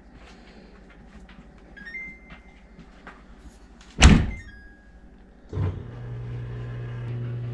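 Samsung dishwasher starting up: short beeps from its control panel, a loud thump about four seconds in as the door is shut, then a knock and a steady low hum as the machine begins running, very quiet.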